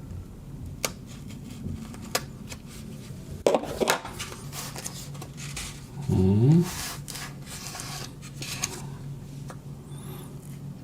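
Cardboard packaging being handled: scattered clicks and taps and a stretch of rustling. About six seconds in, a short voice-like sound rises in pitch and is the loudest thing heard.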